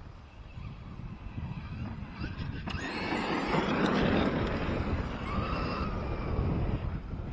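Electric RC truck driving close by on dirt. Its motor whine rises and falls in pitch as the throttle changes, and it is loudest about four seconds in. Wind rumbles on the microphone throughout.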